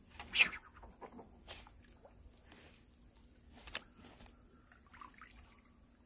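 A sharp splashy knock about half a second in, then a few lighter splashes, drips and clicks as a hooked fish drags the fishing line and float through the water surface.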